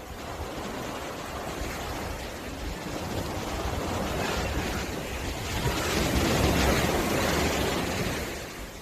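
Ocean surf washing onto a beach: a steady rush of waves that swells to its loudest about six to seven seconds in, then ebbs.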